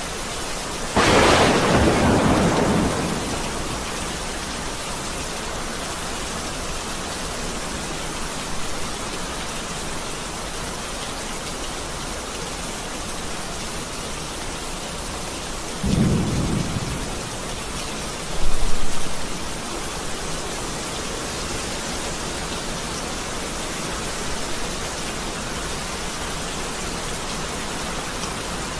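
Steady rain with thunder: a loud clap about a second in that rolls off over a couple of seconds, then two shorter, deeper rumbles a little past the middle.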